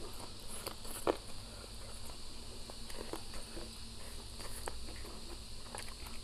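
Close-up chewing of a fried chicken drumstick: scattered wet mouth clicks and smacks, with the sharpest click about a second in.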